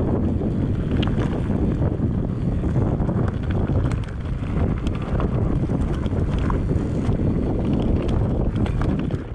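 Heavy wind rumble buffeting the microphone while riding a trail, with a few sharp clicks and rattles scattered through.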